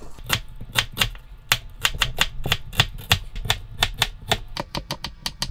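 Kitchen knife slicing a carrot into thin strips on a plastic cutting board: a run of quick, sharp knife strikes on the board, about five a second, coming faster near the end.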